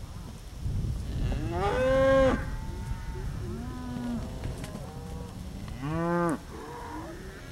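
Cows and calves mooing and calling at feeding time. Two loud, drawn-out moos come about a second and a half in and again about six seconds in, with quieter, higher calls from other cattle between and after them.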